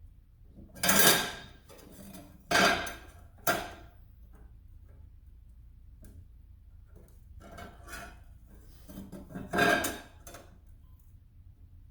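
Short metallic clatters and scrapes as a ruler and a steel saw blade are handled and shifted against each other, in about five separate bursts with a slight ring; the loudest come about a second in and just before the end.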